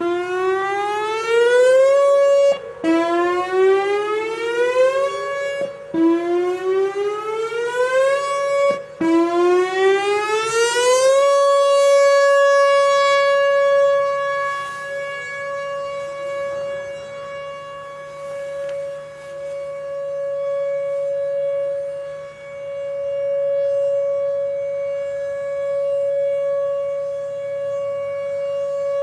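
Whelen 4004 electronic outdoor warning siren sounding its monthly test tone. It sweeps up in pitch four times in quick succession, then holds one long steady tone whose loudness swells and fades.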